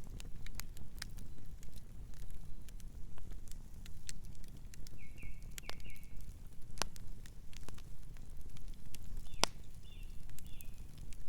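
Campfire crackling: scattered sharp pops and snaps over a low steady rumble of burning wood. A few short high chirps come in about halfway through and again near the end.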